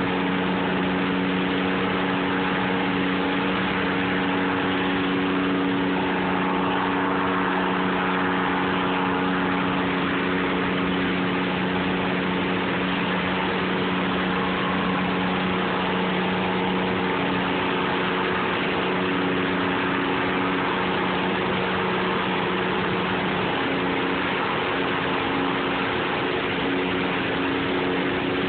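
Water pouring over a low dam in a steady rush, with an engine running underneath at a steady, unchanging pitch, from the boat moving the crane barge.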